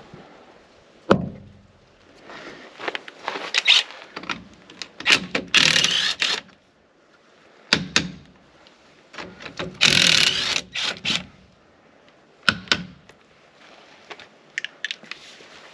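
Truck tire-swap work: several sharp clanks and thunks of tools and wheel parts, and two noisy bursts of about a second each.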